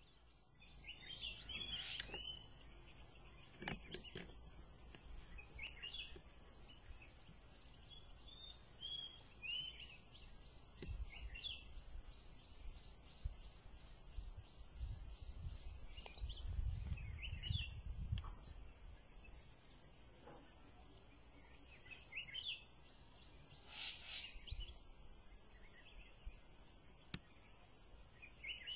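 Night insects, crickets or similar, keeping up a steady high-pitched drone, with short chirping calls scattered through it. Occasional low bumps and knocks come from handling in the boat.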